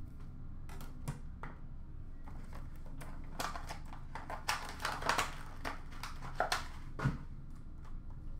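A run of light clicks, taps and rustles from trading cards, plastic card holders and card boxes being handled on a counter, busiest in the middle and latter part.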